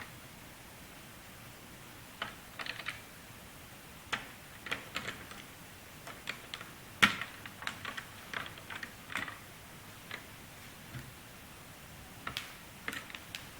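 Faint, scattered small clicks and taps of a screwdriver driving two small screws back into a laptop's chassis, coming in irregular little clusters, with the sharpest click about halfway through.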